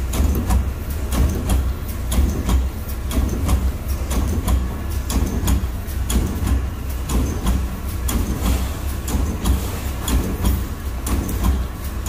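Automatic weld-mesh machine running: a steady low hum, with sharp clacks repeating a few times a second as its electrode heads work the wire grid.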